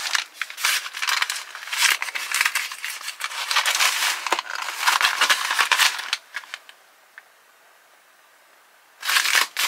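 Cardboard MRE carton being picked up and handled, rustling and scraping with small crinkles. It falls quiet about two-thirds of the way through, then the rustling starts again near the end.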